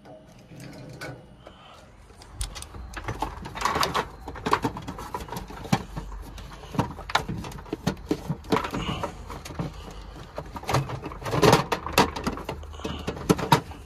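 Irregular knocks and clatter of hand tools and fittings being handled, over a low steady hum that starts a couple of seconds in.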